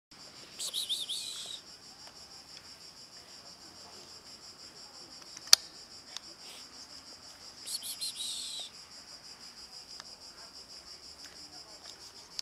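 Insects chirring steadily, a high pulsing drone. Two short, louder high chirping calls come about a second in and about eight seconds in, and a single sharp click sounds about five and a half seconds in.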